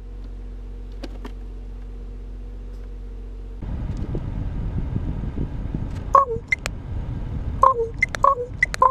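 Common raven perched on a truck's side mirror giving a quick run of short calls, each dropping in pitch, mixed with sharp clicks, starting about six seconds in. Under it is the truck's steady hum, joined by a louder low rumble that begins abruptly a little past three seconds.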